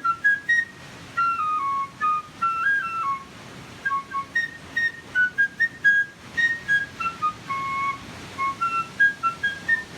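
Whistled tune as part of a music track: a melody of short, clear notes stepping up and down, with no accompaniment, over faint hiss.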